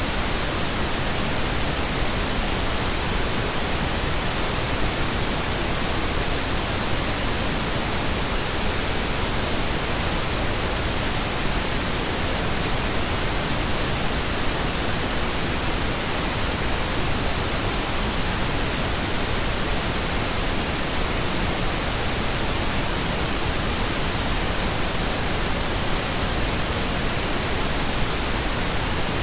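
Steady pink noise: an even, unchanging hiss spread across all pitches, weighted toward the low end, generated as a sleep aid.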